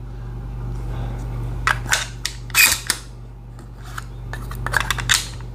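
Metallic clicks and clacks of a Mossberg 500 pump-action shotgun being loaded by hand, in two clusters about two seconds in and near the end, over a steady low hum.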